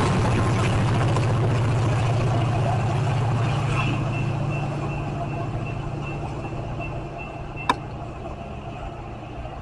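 Metra EMD F40PH diesel locomotive pushing a departing commuter train, its engine's low steady hum fading as the train pulls away under power. A thin high whine sets in a few seconds in, and a single sharp click comes near the end.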